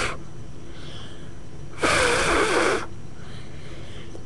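A person's breathy exhale close to the microphone, about a second long, near the middle.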